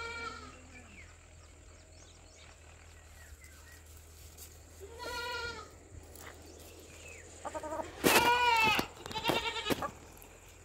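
Several drawn-out animal cries: one at the start, one about five seconds in, and a louder run of three near the end, the last one quavering.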